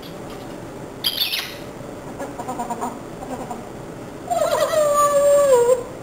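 Pet parrot vocalizing: a short shrill squawk about a second in, then soft mumbling chatter, then a longer drawn-out call that slowly falls in pitch near the end.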